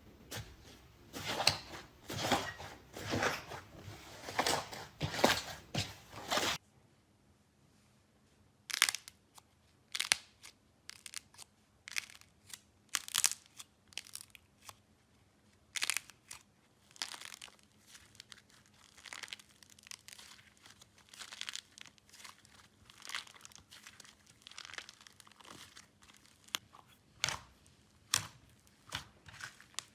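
Slime being squeezed and stretched by hand: a dense run of crackling and popping for about the first six seconds, then, after a cut, sparser separate pops and clicks.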